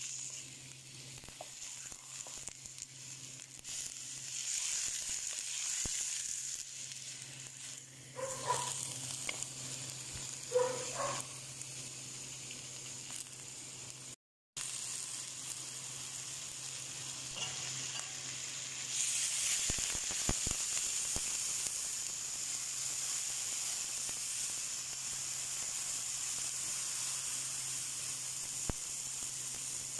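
Raw chicken drumsticks and thighs frying in a wok, a steady sizzle as they sear and start to release their juices. There are two brief, louder sounds about a third of the way in, and the sizzle grows a little louder later on.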